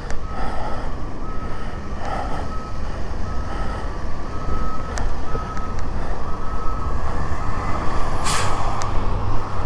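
Reversing-alarm style electronic beeping, one steady tone switching on and off about once a second, over constant low wind and running rumble. A loud rush of noise comes near the end.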